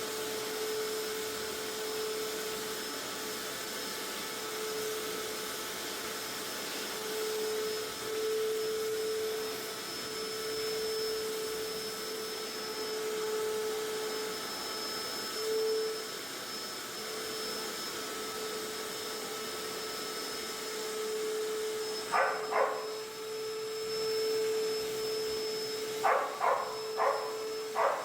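Vacuum cleaner running steadily, its motor giving a constant whine over a hiss of airflow. A handful of short sharp sounds stand out near the end, two and then four in quick succession.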